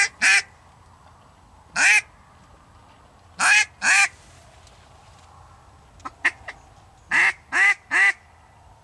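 Duck call blown by mouth in loud, short mallard hen quacks, singly and in quick runs of two or three with pauses between. A few faint clicks about six seconds in.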